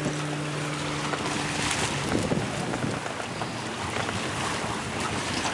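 Wind buffeting the microphone over waves washing against granite breakwater rocks. A steady low hum runs through the first two seconds, then fades.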